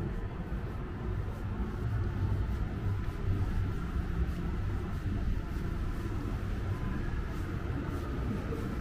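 Steady low rumble of city-centre background noise, the hum of distant traffic, with no single event standing out.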